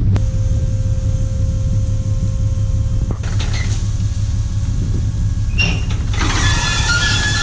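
Bobcat E50 compact excavator's diesel engine running steadily. A steady whine sounds for the first three seconds, and metallic squealing comes in near the end.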